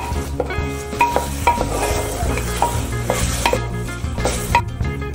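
Wooden ladle stirring and pressing diced potato curry in an aluminium pressure cooker, scraping and knocking against the pot every second or so, with the masala frying lightly over a medium flame. Soft background music plays under it.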